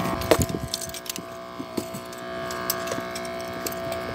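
Fishing rod and reel being handled, giving light clicks, taps and rattles that are thickest at the start. A steady motor hum runs underneath.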